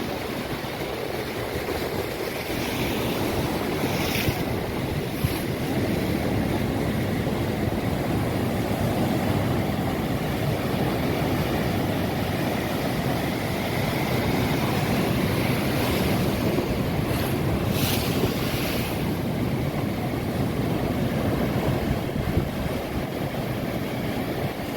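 Sea surf washing and breaking steadily, with wind blowing on the microphone.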